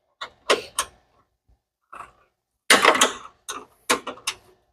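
Hand tools clicking and clinking against metal: a series of sharp, irregular clicks with a denser clatter about three seconds in.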